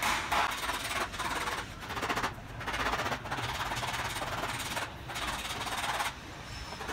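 Hand sanding of body filler on a car's door and fender panels: long rasping strokes of sandpaper over the panel, with short breaks about two and a half and five seconds in.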